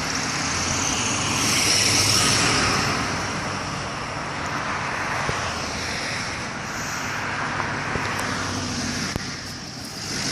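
Road traffic going by: a steady rush of passing vehicles, loudest about two seconds in as one goes past.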